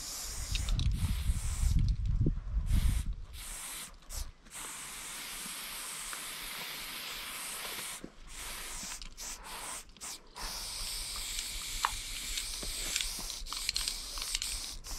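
Aerosol spray paint can hissing in long sprays, cut by several brief pauses as the nozzle is released, with a low rumble during the first three seconds.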